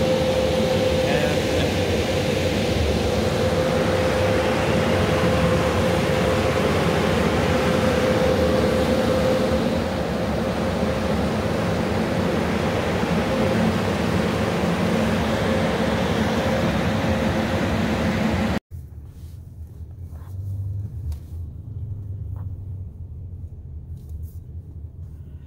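Car wash tunnel machinery running with a steady loud whooshing noise and a hum, heard at the tunnel entrance. It cuts off abruptly a few seconds before the end, replaced by the much quieter low hum of a car cabin with the engine running.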